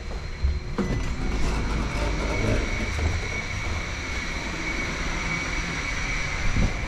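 Steady low rumble with a constant high-pitched whine, the hum of machinery or ventilation running.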